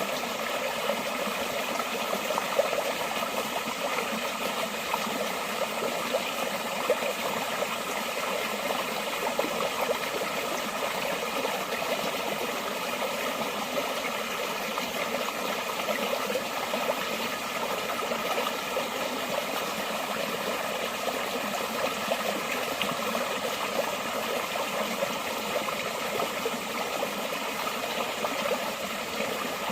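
Forest stream flowing steadily: an even, continuous rush of water with no deep rumble.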